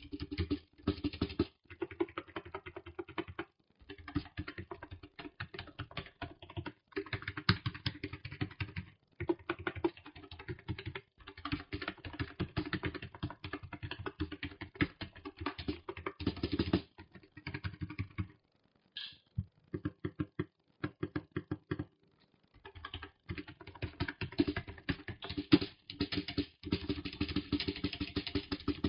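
Typing on a Redgear MT-02 gaming keyboard: fast runs of key clicks in bursts with short pauses. The keyboard has no metal plate, so the keystrokes sound off its plastic body.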